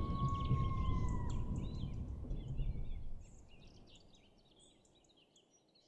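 Tail of a logo sting's nature-ambience sound effect: a low rumble under a busy chorus of small bird chirps, with a held whistle-like tone that dips slightly about a second in. It all fades away, mostly gone by about three seconds in and silent soon after.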